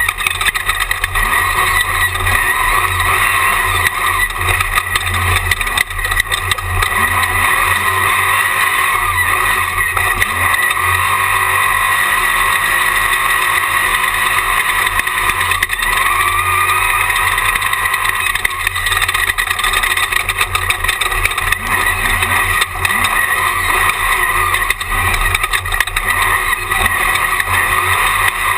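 In-car sound of a Jimco Class 1 desert race buggy at speed, heard from its on-board camera: the engine runs steadily and loudly throughout, with frequent short knocks from the car over rough ground.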